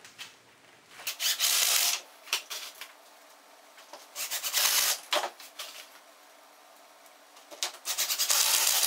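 Cordless DeWalt impact driver driving 1¼-inch coarse-thread Kreg pocket screws into pine, fastening a butt joint of the door frame. Three short bursts, each just under a second, about a second in, about four seconds in and near the end.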